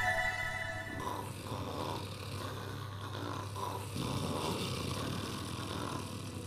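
A man snoring. The last of a piece of music fades out in the first second.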